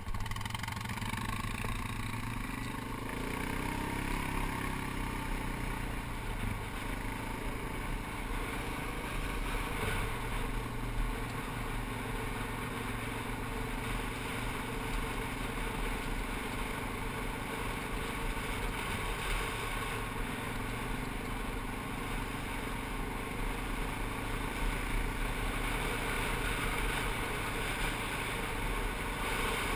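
ATV engine running steadily while riding along a gravel road, heard from on board. The engine pitch climbs about two to three seconds in.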